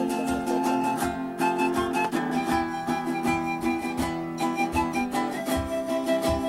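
Andean folk music: acoustic guitar and other plucked strings playing over a steady rhythm.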